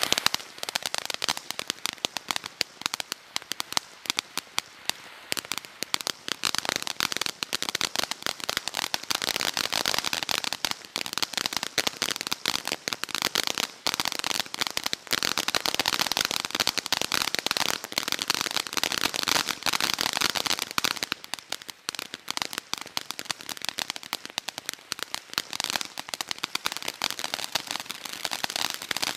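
Cutting Edge Fireworks' Armadillo Fountain, a consumer ground fountain, spraying sparks with dense, rapid crackling over a steady hiss.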